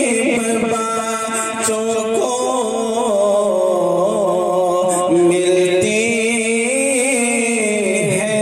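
A man singing a naat (Islamic devotional poem) into a stage microphone, drawing out long, wavering held notes.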